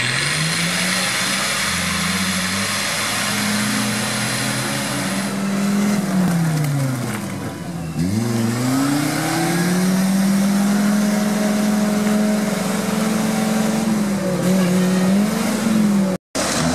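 Off-road 4x4 engines revving hard in deep mud: the Nissan Patrol's engine climbs, holds at high revs, then drops away; about eight seconds in, a small jeep's engine climbs again and holds high, its revs wavering near the end.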